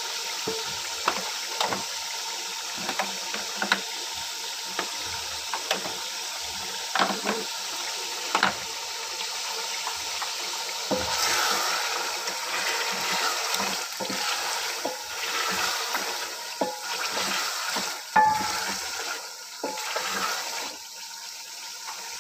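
Chicken frying in ghee in an aluminium pot, sizzling steadily, with a wooden spatula clicking and scraping against the pot as it is stirred. From about halfway the sizzle grows louder and crackles more.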